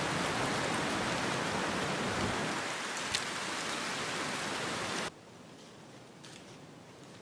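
Strong wind, about 20 mph, blowing through the trees and across the microphone as a steady rushing noise, with one sharp tick about three seconds in. It cuts off suddenly about five seconds in to a much quieter hush.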